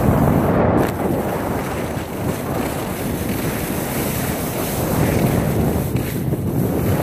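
Wind buffeting a hand-held phone's microphone while skiing downhill: a loud, steady, rumbling rush of noise.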